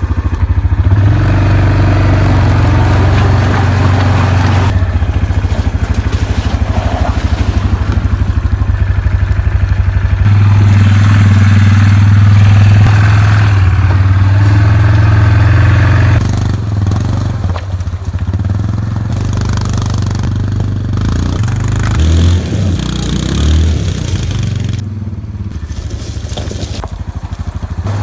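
ATV engine running close by, steady and loud for about the first sixteen seconds. It then drops lower and turns uneven, with crunching and scraping on the creek stones.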